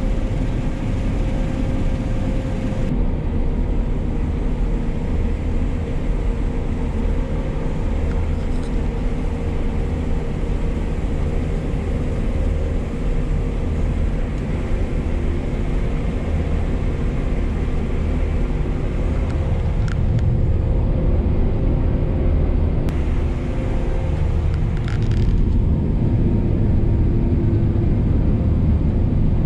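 Claas Tocano combine harvester running steadily while harvesting, heard from inside the cab: a low engine and threshing drone with steady hum tones. It gets a little louder in the last few seconds as the unloading auger pours grain into a trailer.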